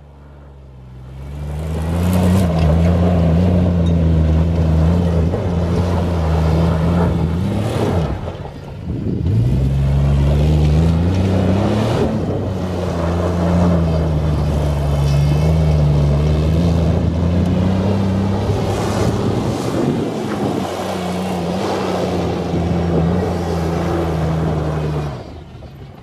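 Car engine held at high revs in first gear with traction control off for a burnout, tyres spinning. It eases off about eight seconds in, revs back up, and drops away near the end.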